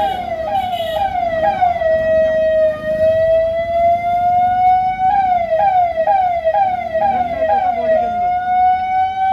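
Ahuja electronic VIP siren sounding. It gives a run of quick falling chirps, about three a second, then a slow rising wail. About five seconds in the chirps return for some three seconds, followed by another slow rise.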